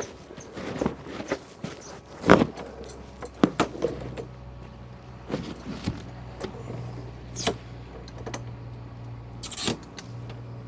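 Scattered clinks and knocks of metal tools and plumbing fittings being handled. A steady low hum starts with a loud knock about two seconds in and carries on underneath.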